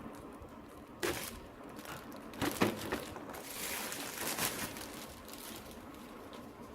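Plastic packaging crinkling and crackling as the GoPro tripod mount package is opened by hand, with a sudden rustle about a second in, a few sharp crackles, then a longer stretch of crinkling.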